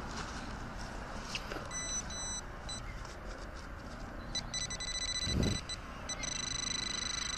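Handheld metal-detecting pinpointer sounding a steady high beep as it is worked through a dug hole in turf, signalling metal in the soil. It sounds in short broken bursts at first, then holds continuously from about halfway through. There is a brief low thump a little past the middle, with light scraping clicks of soil.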